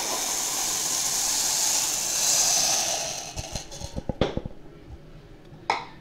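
Metal tumbling media poured into a rotary tumbler barrel of soapy water, a steady splashing hiss for about three and a half seconds. As the pour ends there are several sharp clinks and knocks, and one more near the end.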